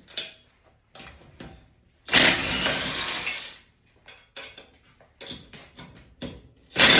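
Two loud bursts from a power tool, each about a second and a half long, one about two seconds in and one near the end, with light clicks and knocks of tools and parts between them.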